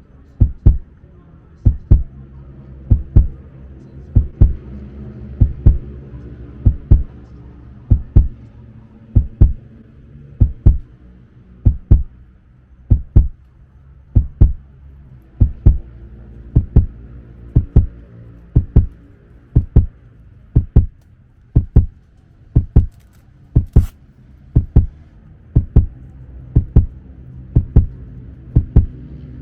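Heartbeat: a steady lub-dub of paired low thumps, about one beat every 1.2 seconds, over a low steady hum.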